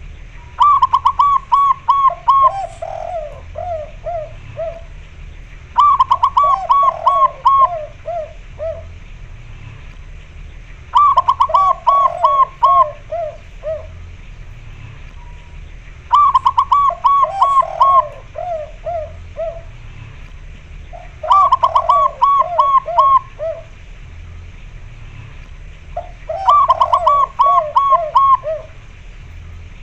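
Zebra dove (perkutut) song: a quick run of about five coos on a higher note, then a run of lower stepping coos. The phrase repeats six times, about every five seconds. The calling bird is a white-barred female calling to a male.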